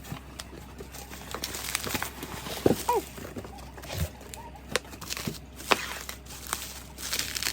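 A cardboard box and its packaging being opened by hand: irregular rustling, crinkling and tearing with scattered small clicks and knocks.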